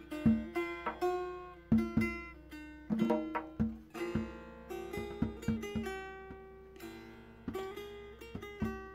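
Background instrumental music: a plucked-string melody of separate struck notes, each ringing and fading, several a second.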